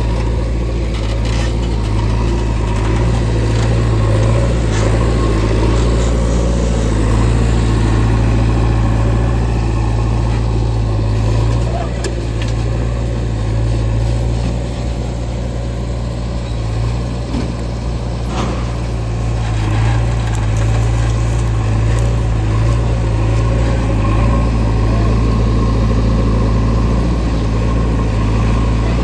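Diesel engine of a JCB 3DX backhoe loader running steadily under work while it loads mud, with a few light knocks, the clearest about two-thirds of the way through.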